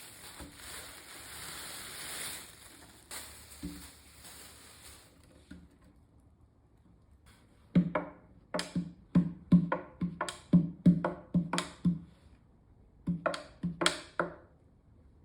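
A noisy rustling hiss for about five seconds. Then a run of about a dozen sharp, pitched knocks or taps, each dying away quickly, in two bursts near the end.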